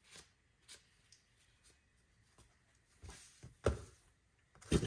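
Quiet handling of a shop towel and small steel flintlock lock parts: soft rustling of the cloth, a sharp click about three and a half seconds in, and a louder knock near the end as a part is set down on the workbench.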